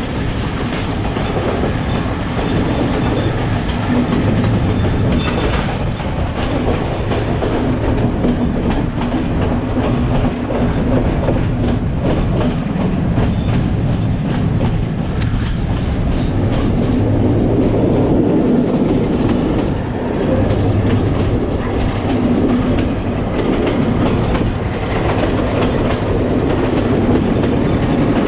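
Passenger train running at a steady pace, heard up close from an open carriage doorway: a continuous rumble of wheels on track with a quick, irregular clatter of clicks from the rails.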